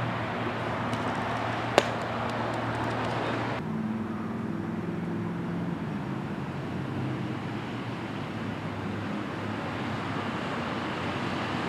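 Steady outdoor background noise of distant road traffic, with a single sharp crack about two seconds in.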